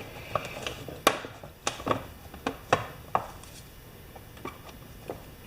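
Handling clatter of tools and parts on a workbench: a string of sharp clicks and light knocks, most in the first three seconds, fainter and sparser after.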